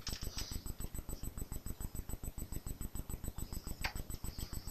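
Steady rapid low pulsing, about ten even pulses a second, with a single sharp click near the end.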